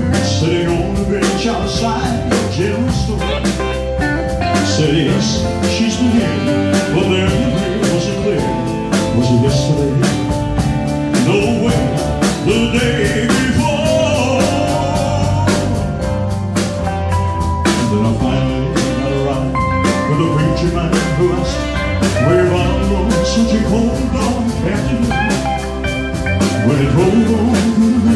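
Live band playing a country-rock ballad: drum kit keeping a steady beat under bass, electric guitar, keyboards and saxophone, with a man singing over it at times.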